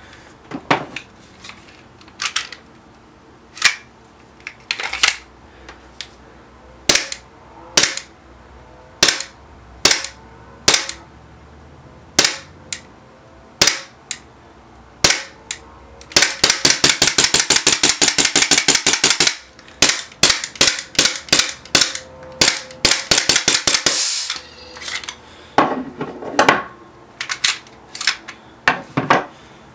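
Short-stroked KWA ATP gas blowback airsoft pistol firing. First come single shots about a second apart, then two long rapid strings of shots in the middle, then single shots again near the end.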